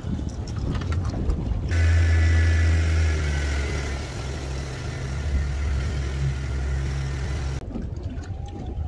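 Outboard motor of a small fishing boat running at speed under way, a steady drone with a higher tone over it and water rushing past. It starts abruptly about two seconds in and cuts off about a second before the end, with wind and water noise either side.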